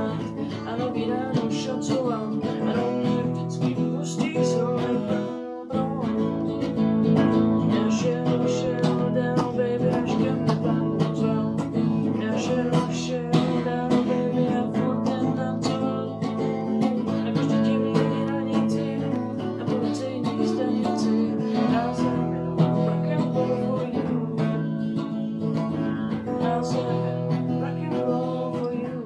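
Strummed acoustic guitar playing a song accompaniment, with a short break about five and a half seconds in.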